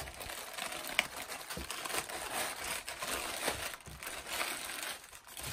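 Clear plastic bag crinkling and rustling as goalkeeper gloves are worked out of it by hand, with one sharp tick about a second in.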